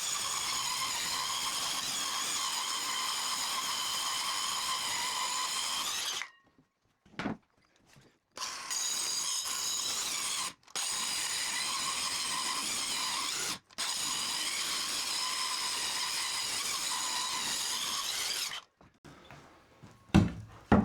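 Electric power saw running steadily with a high whine, cutting timber along a marked line; the sound stops abruptly and resumes several times.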